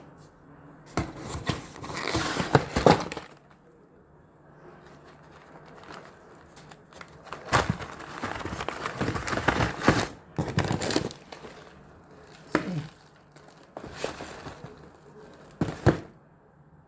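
Plastic snack and biscuit packets crinkling and rustling as they are handled, in several spells, with a couple of sharp knocks.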